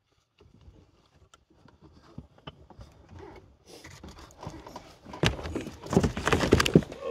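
Rustling, scraping and knocking as a bull elk carcass is heaved onto an ATV rack, with close clothing and body contact against the machine. Faint at first, it grows about four seconds in into loud, dense rustling with many knocks, loudest near the end.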